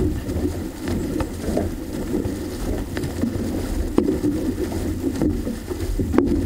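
Water rushing and splashing along an outrigger canoe's hull as the crew paddles, with wind buffeting the microphone. Sharp short knocks come every second or two.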